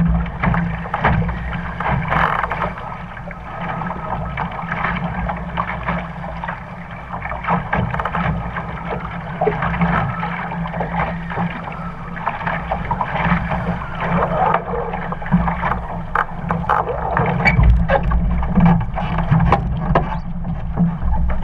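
Water slapping and splashing irregularly against the hull of an RS Aero sailing dinghy, over a steady low rumble of wind on the microphone.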